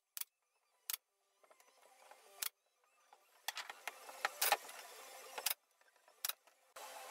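Pneumatic nail gun firing fasteners through a pine panel into a dresser top. About six sharp snaps come a second or so apart, unevenly spaced.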